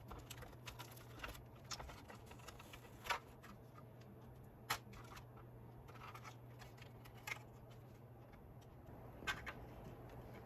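Scattered small clicks and taps of parts and tools being handled while a toy gyro stage is taken apart, over a low steady hum. The sharpest clicks come about 3, 5, 7 and 9 seconds in.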